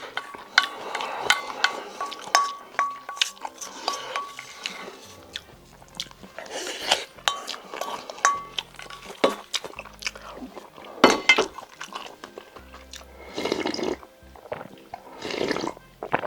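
Eating sounds: a spoon clicking and scraping against a bowl of octopus bibimbap, with chewing between the many short sharp clicks.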